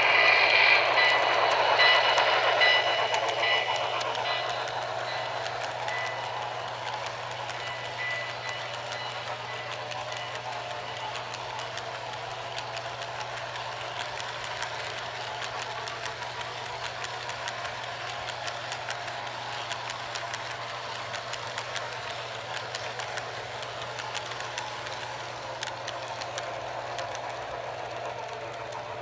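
Model N&W Y6b steam locomotive running past, loudest in the first three seconds, followed by its train of model coal hopper cars rolling by, the wheels clicking quickly and unevenly over the track joints over a steady rolling noise and low hum.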